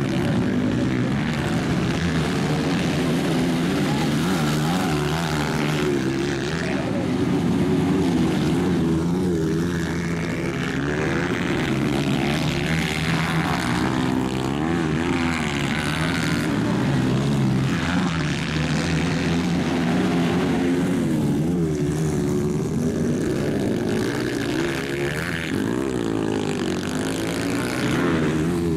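230cc single-cylinder four-stroke dirt bike engines racing, revving up and down as the riders accelerate and shift, their pitch rising and falling.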